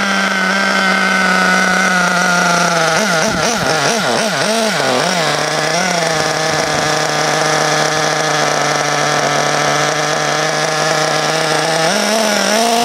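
SH .21 two-stroke nitro glow engine of a 1/8-scale RC buggy running. Its pitch wavers up and down for a few seconds, then holds level and rises slightly near the end, while the high-speed needle is leaned out too far.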